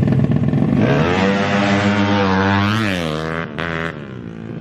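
Small four-stroke underbone motorcycle engine revving hard as a racing bike goes by. Its pitch climbs about a second in, holds, then drops as the sound fades, and a brief second burst of engine noise follows.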